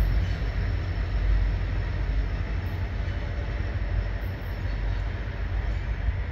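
Low rumble of a freight tank train moving away past the crossing, fading slowly.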